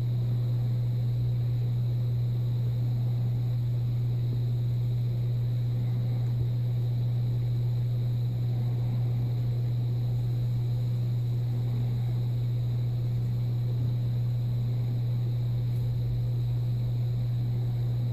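Steady low hum from inside a moving car, recorded by a dashcam. It holds one unchanging pitch throughout, with faint road noise beneath it.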